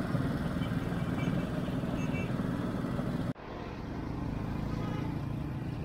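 Small petrol engine of a sugarcane-juice crusher running steadily, with street traffic around it. The sound cuts off abruptly a little over three seconds in and gives way to steady street traffic noise.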